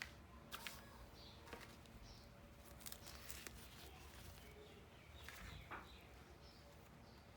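Faint light clicks and scratches of small plastic toy pieces being handled, a few scattered ones about half a second, one and a half, three and five and a half seconds in, over a near-silent background.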